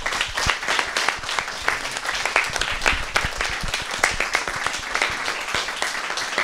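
Audience applause: many hands clapping in a dense, irregular patter.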